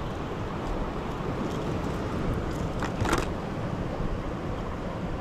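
Steady sea surf and wind noise, with a brief louder rush about three seconds in.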